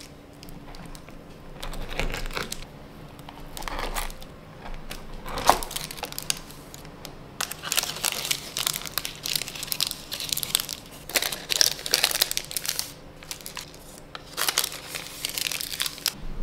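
Baking paper crinkling and rustling in irregular bursts as a knife cuts through a tart on it and the wedges are lifted and set back down on the paper, with one sharp knock about five seconds in.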